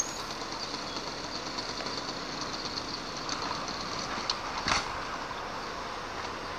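Small two-stroke engine of a Kreidler moped running steadily at idle, with one sharp knock about two-thirds of the way through.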